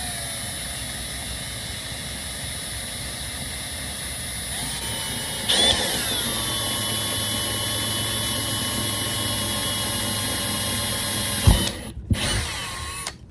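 Electric drill running steadily as it bores into an acrylic livewell lid. Its whine jumps up in pitch and loudness about halfway through, holds steady, then stops near the end, followed by a couple of short bursts.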